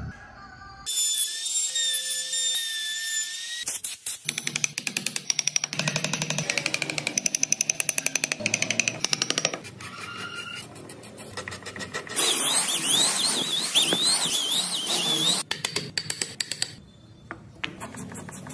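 Woodworking tool sounds on hardwood: a small power tool whines steadily for a few seconds, then a hand carving tool scrapes and cuts into the wood in quick, regular strokes, several a second. Later comes a longer, denser stretch of working noise with a wavering high whine.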